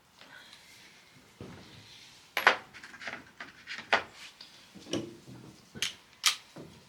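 Hand tools and metal parts clinking and knocking while working on a farm topper's gearbox: a run of sharp separate clanks, irregular, about one every half second to second.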